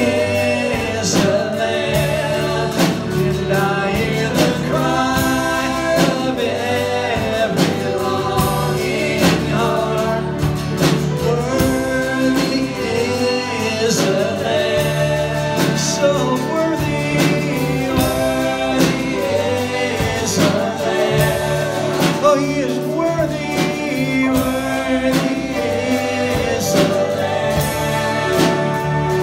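A worship song: voices singing over instrumental accompaniment with a steady beat.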